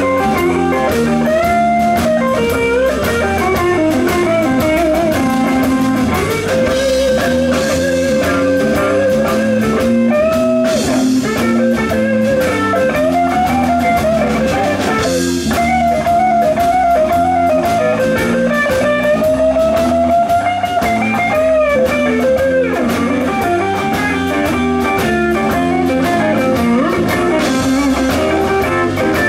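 Live blues-rock band playing an instrumental passage: electric guitar, bass guitar and drum kit, with a lead melody line that bends and slides in pitch over the steady chords and beat.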